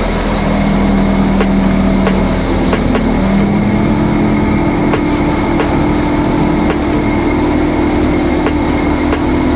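Motorboat engine running under way over a steady rush of wind and water, its pitch stepping up about three and a half seconds in. Sharp knocks recur every second or so.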